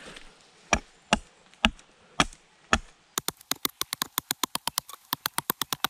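Hatchet chopping into a wooden pole resting on a chopping block, pointing its end into a stake. Five separate sharp blows about half a second apart, then from about halfway a fast even run of lighter strikes, about seven a second.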